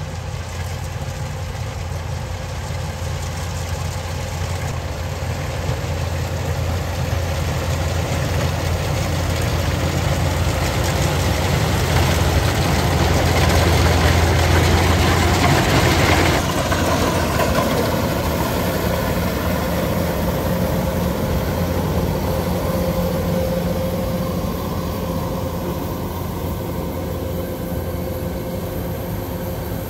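Kubota 105 combine harvester's diesel engine and threshing machinery running steadily while cutting rice. It grows louder as the machine draws near, then about halfway through drops suddenly to a quieter, more distant running.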